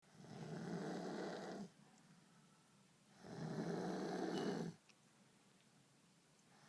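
A sleeper snoring: two long snores, each about a second and a half, with a pause of about a second and a half between them.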